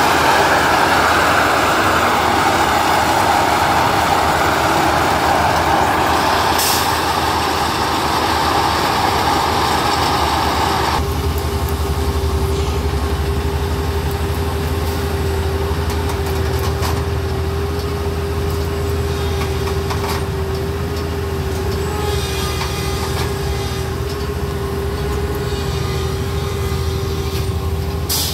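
Plasser & Theurer 08-32 U ballast tamping machine running. A loud rushing noise cuts off abruptly about eleven seconds in, leaving the machine's engine humming steadily with a steady whine over it.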